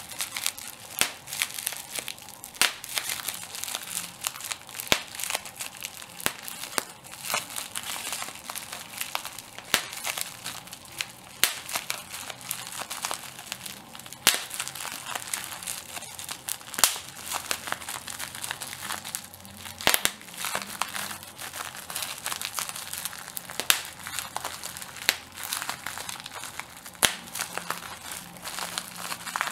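Plastic bubble wrap being handled and popped: continuous crinkling of the plastic sheet with irregular sharp pops, a few much louder than the rest.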